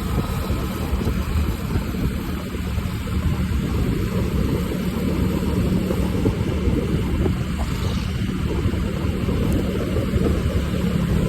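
Steady engine and road noise of a vehicle driving along a city street: a continuous low rumble with a constant hum.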